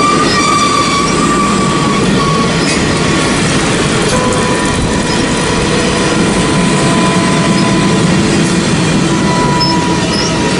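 Union Pacific passenger train's streamlined passenger cars rolling past, a steady loud rumble of wheels on rail. Thin, high wheel-squeal tones come and go over it, one fading out about two seconds in and another setting in about four seconds in.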